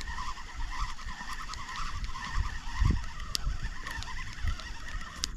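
Spinning reel being cranked to retrieve line, its gears giving a steady fluttering whir that stops near the end, over low wind rumble on the microphone.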